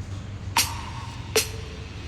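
Isan phin, the plucked Thai lute, sounding two sparse plucked notes about a second apart, each ringing briefly, over a steady low hum.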